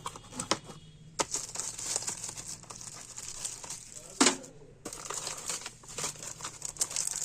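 Packaging being crinkled and handled, a steady crackling rustle broken by sharp clicks, with one louder knock about four seconds in.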